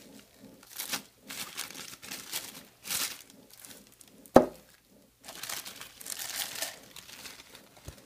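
Plastic packaging crinkling and rustling in repeated bursts as it is pulled off a glass tea mug, with one sharp knock about four seconds in.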